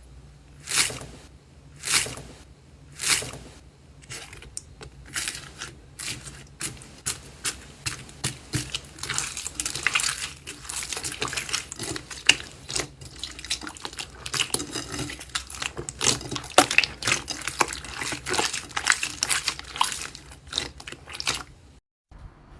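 Slime being squeezed and worked by hand: three wet squelching pops about a second apart, then a long run of dense, quick little clicks and pops.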